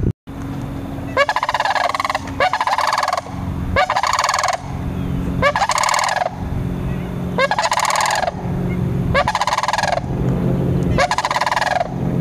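Sandhill cranes giving their rolling, rattling bugle calls, one after another about once a second, each call under a second long.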